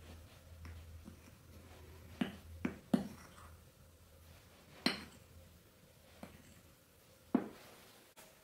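Metal spoon stirring dry flour in a ceramic bowl, clinking against the bowl several times at irregular moments.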